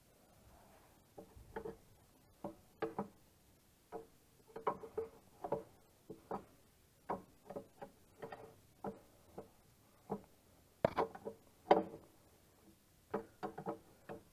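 Ratchet wrench clicking in short, irregular runs as dual-wheel clamp nuts are tightened on a tractor wheel, with two louder knocks about three-quarters of the way through.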